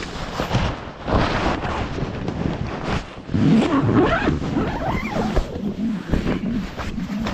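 Nylon fabric of a Quechua dome tent rustling and the camera being jostled and knocked during a hurried scramble into the tent, loud and uneven.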